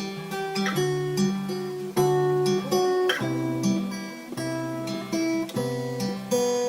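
Music: an instrumental song intro of a guitar strumming chords in a steady rhythm, with no singing.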